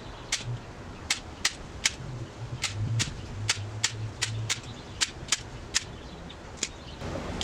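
A series of about fourteen sharp, short clicks or snaps at irregular intervals, like a hand tool working.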